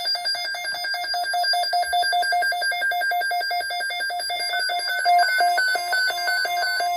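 Rapid electronic beeping: two pitches pulse in fast, even repetition. After about four and a half seconds the notes begin stepping up and down in a short repeating tune.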